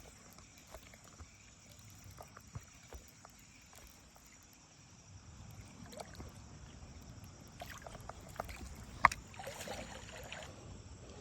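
Light clicks and knocks of handling fishing tackle at a creek. About nine seconds in comes one sharp click, then a second or so of splashing as a small fish comes out of the water, over a faint steady insect drone.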